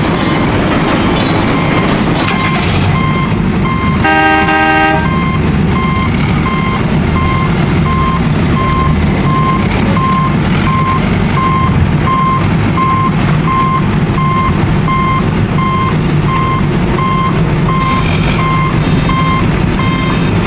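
A vehicle's reversing beeper sounds about twice a second over steady engine-like rumbling, with a short horn toot about four seconds in.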